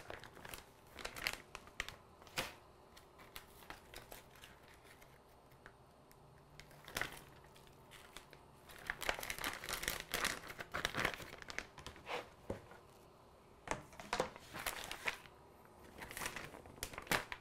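Clear plastic vacuum-sealer bag crinkling in irregular bursts as raw ribeye steaks are slid into it. There is a quieter stretch in the middle, and the rustling is busiest in the second half.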